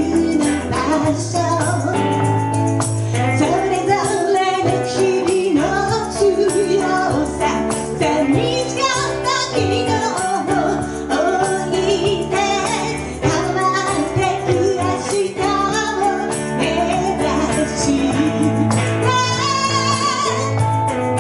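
Music: a song with a singing voice over instrumental backing, steady bass notes and light percussion.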